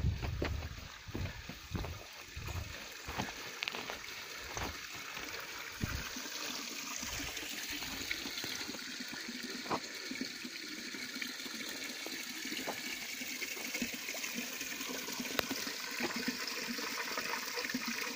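Footsteps and knocks on a dirt path in the first few seconds, then the steady splash of spring water running from a pipe spout into a stone trough, a little louder toward the end.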